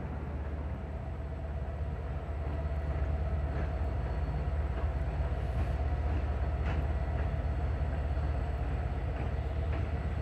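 Diesel freight train running with a steady low rumble that grows slightly louder about two seconds in.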